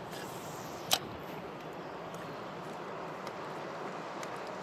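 Steady rush of a shallow creek flowing over rocks, with one sharp click about a second in.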